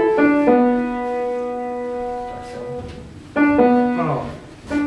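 Piano music: chords and melody notes, with one long held chord, then new chords starting about three and a half seconds in.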